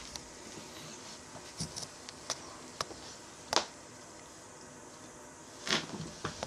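Two cats play-fighting: scattered scuffles and sharp thumps of paws and bodies, the loudest about halfway through and a quick cluster near the end.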